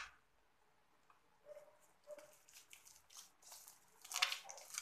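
Sticky homemade slime being stretched and squeezed between the fingers, giving faint soft squishes and small tacky clicks that begin about a second and a half in and grow a little louder near the end.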